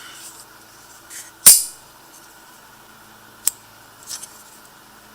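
Double-action out-the-front knife, a Microtech copy, firing its spring-driven blade with one loud, sharp snap about a second and a half in, followed by a small click and a couple of faint ticks as it is handled.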